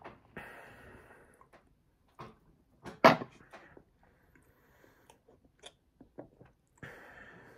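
A plastic straw scraping and tapping inside a clear plastic milkshake lid, with scattered clicks and one sharp, loud click about three seconds in. Close-up eating sounds from scooping the shake off the straw.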